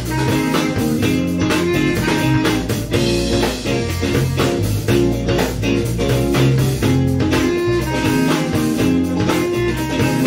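Live band playing an instrumental passage: electric guitar over a drum kit with a steady beat.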